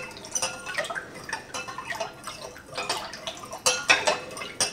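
Metal spoon stirring water in a large glass bowl, with irregular clinks and scrapes on the glass and small splashes as salt and xylitol are dissolved. A few louder clinks come near the end.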